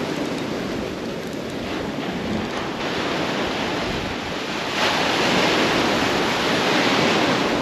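Ocean surf breaking and washing close by, with wind on the microphone. The wash swells louder about five seconds in, as a wave breaks just in front.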